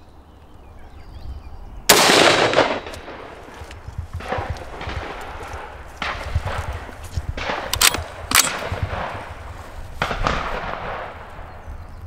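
Schmeisser SP15 straight-pull .223 rifle firing: one sharp shot about two seconds in, the loudest sound, with a tail that rings out over about a second. Several quieter reports and a couple of short sharp clicks follow over the next eight seconds.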